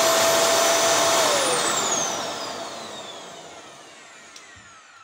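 Samsung vacuum cleaner's replacement motor running at full speed with a high whine and rush of air. A little over a second in it is switched off and winds down, its whine falling in pitch and fading away over the following seconds.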